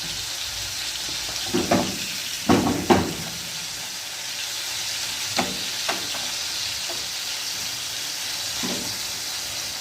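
Chicken thighs frying with onion and garlic in a pan, sizzling steadily. A utensil knocks and scrapes against the pan a few times, loudest about two to three seconds in.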